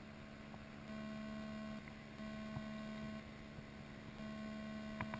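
Faint steady electrical hum that cuts in and out about once a second, with a few faint ticks.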